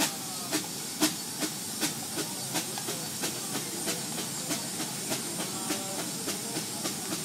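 Steam traction engine running under load on a belt-driven dynamometer for a brake horsepower test: a steady steam hiss with sharp, regular beats about three a second.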